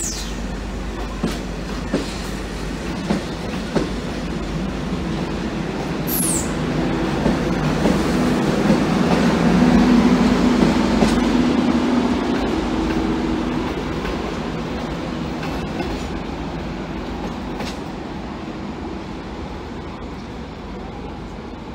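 Carriages of a locomotive-hauled V/Line passenger train rolling past on steel rails, with wheels clicking over rail joints and a brief high wheel squeal about six seconds in. The sound swells to its loudest about ten seconds in, with a low hum as the power van at the rear goes by, then fades as the train draws away.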